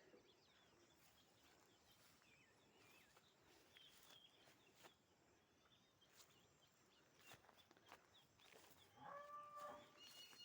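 Very faint outdoor quiet with scattered short bird chirps, and about nine seconds in a drawn-out call from a farm animal.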